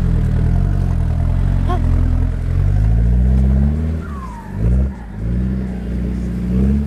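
Off-road 4x4 engine revving hard on a steep rocky climb, the revs flaring as the wheels spin in loose dirt. The engine note climbs, drops sharply about halfway, then climbs again.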